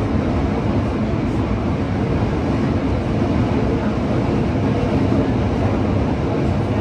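Running noise heard from inside a Yokohama Municipal Subway 3000S-series car travelling through a tunnel: a steady, even rumble of the wheels on the rails and air in the tunnel, with no rise or fall in pitch.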